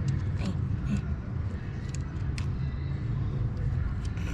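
Steady low rumble like a vehicle engine running, with a few light clicks.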